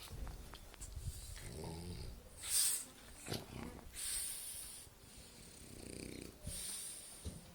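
French bulldog snoring in its sleep: low rattling snores alternating with short, airy hissing breaths.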